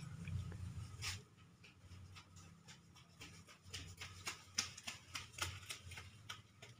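Baby macaque sucking and mouthing a person's finger: soft, irregular smacking clicks, several a second.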